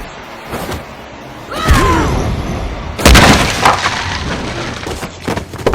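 A series of booming crash and smash impacts. One about a second and a half in carries a falling pitched sound, the loudest crash comes about three seconds in, and smaller hits follow.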